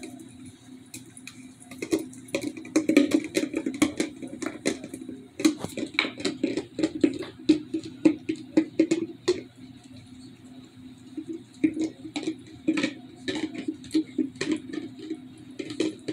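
German Shepherd licking and gnawing a nearly empty plastic Jif peanut butter jar: rapid, irregular clicks and taps of teeth and tongue against the plastic, in clusters with short pauses.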